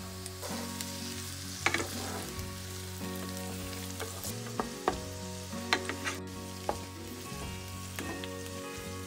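Chopped vegetables sizzling in oil in a non-stick frying pan as they are stirred, with a few sharp clicks and scrapes from the utensil against the pan.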